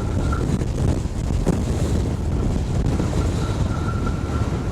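Gale-force wind buffeting the microphone in a heavy, steady rumble, with big lake waves crashing against the icy shore beneath it. A faint thin whistle that the camera makes in the wind sounds at the start and again from a little past halfway. There is one sharp knock about a second and a half in.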